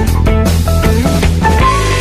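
Background rock music: a melody over a bass line and drum beats.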